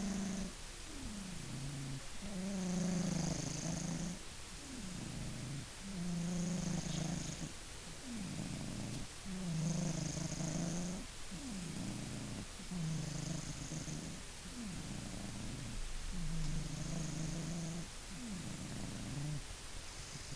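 Maine Coon cat snoring in its sleep: a buzzing snore with a faint high hiss about every three and a half seconds, with quieter sliding breaths in between.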